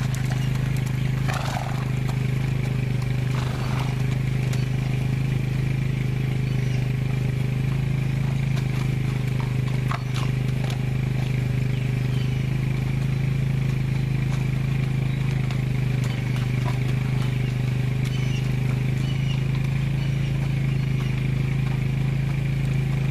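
A steady low motor hum, like an engine running without change, with a few short sharp sounds on top.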